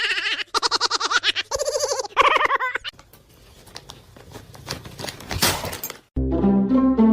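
A voice crying out in rapid pulsing bursts for about three seconds, then scattered knocks and rustling. Music starts near the end.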